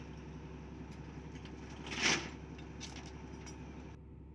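Sumitomo hydraulic excavator's diesel engine running steadily under load as the machine crawls up the loading ramps onto the truck bed, with one brief loud burst of noise about two seconds in.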